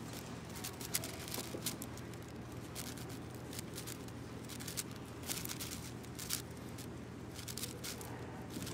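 AoShi WRM 6x6 speed cube being turned quickly by hand: an irregular run of plastic clicks and clacks from the layers, a few of them sharper, over a steady low hum.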